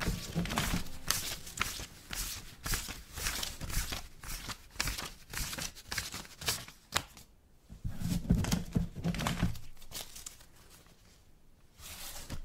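Dense, irregular crackling and clicking noise with a low rumble that swells briefly about eight seconds in; it thins out and fades over the last few seconds.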